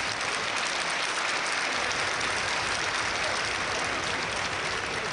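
Audience applauding, a steady dense clapping that swells slightly in the middle.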